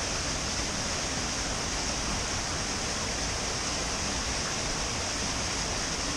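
Small waterfall pouring steadily over a rock ledge, an even hiss of falling water.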